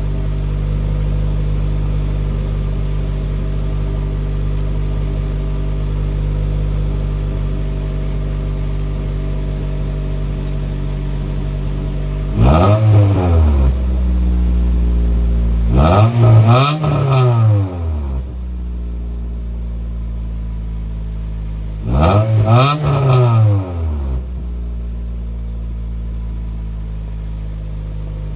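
Acura Integra GSR's four-cylinder engine idling through a newly installed aftermarket cat-back exhaust on a cold start, then blipped several times, each quick rev rising and dropping straight back to idle.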